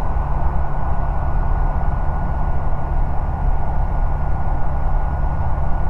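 Ikarus C42 microlight's engine and propeller droning steadily in cruise, heard from the cockpit, with a thin steady whine above the drone.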